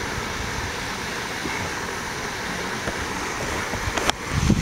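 A steady rushing hiss, even in level, with a brief dropout about four seconds in.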